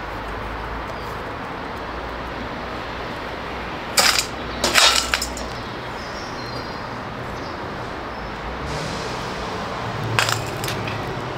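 Hard metal objects clinking against metal: one sharp ringing clink about four seconds in, a short clatter just before five seconds with one piece ringing on briefly, and another clink about ten seconds in, over a steady rushing noise.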